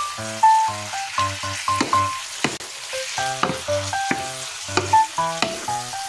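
Beef slices sizzling in a nonstick frying pan as they are stirred with a wooden spatula. Background music of short, bouncy pitched notes with a bass line plays over the frying.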